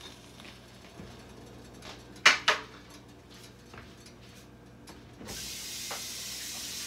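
Two sharp knocks close together, about two seconds in, as the nonstick pan is handled. A little after five seconds a kitchen tap starts running with a steady rush of water.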